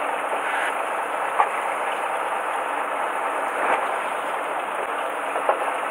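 Steady rushing background noise aboard a fishing boat at sea, with a short knock about a second and a half in and another near the end.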